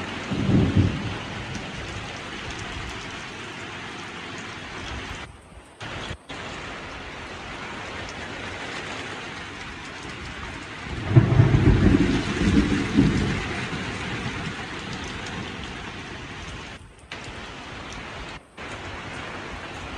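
Heavy rain falling steadily with a continuous hiss, with a rumble of thunder at the very start and a louder, longer roll of thunder about eleven seconds in. The sound cuts out briefly a few times.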